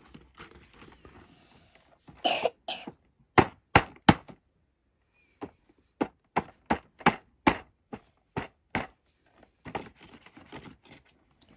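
Cardboard toy box and its clear plastic blister tray being opened and handled by hand: a run of sharp clicks and taps, coming in clusters.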